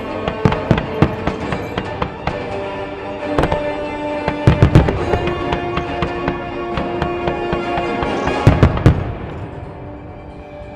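Aerial firework shells bursting in a string of sharp bangs, heaviest around a third of the way in, around halfway, and again at about eight and a half seconds, with music playing throughout; the bangs thin out and the level drops in the last couple of seconds.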